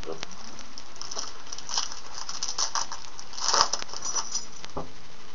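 Foil trading-card pack wrapper being torn open and crinkled, a cluster of crackling rustles with the loudest crinkle about three and a half seconds in.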